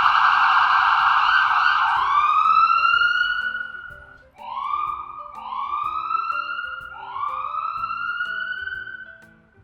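A siren holds a loud, harsh steady tone that cuts off about two seconds in. It then winds up in pitch four times, each rise levelling off before it fades, over soft background music notes, and dies away near the end.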